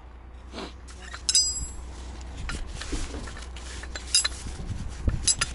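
Metal clinks and rattles of a crane hook and its rigging being handled, a few scattered knocks with a short metallic ring about a second in, over a low steady rumble.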